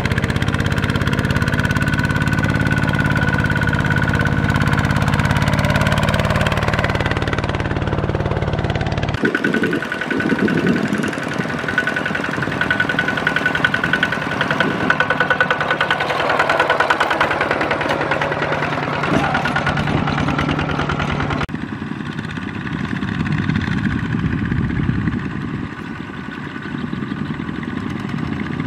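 Kubota RT155 power tiller's single-cylinder diesel engine running under load as it hauls a trailer of rice sacks, joined near the end by several more power tillers. The engine sound changes abruptly about nine seconds in and again about twenty-one seconds in.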